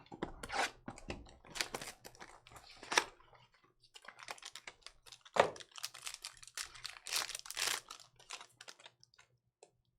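Trading cards being handled and flipped through by hand: an irregular run of soft clicks and swishes as the cards slide against one another.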